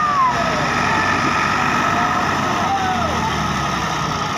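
Two farm tractors, one of them a Ford 4600, running hard together under heavy load as they drag a loaded sugarcane trolley. The engines give a steady, dense rumble.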